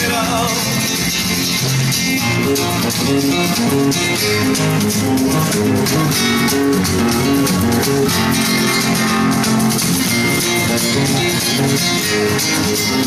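Music led by a rapidly strummed acoustic guitar in a Gypsy, flamenco-like style, with the chords changing as it plays.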